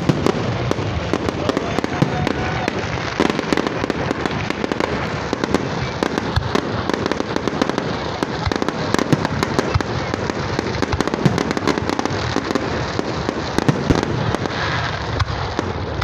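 Aerial fireworks display going off in a continuous barrage: many shells bursting close together, with a steady rain of sharp bangs and crackles and no pause.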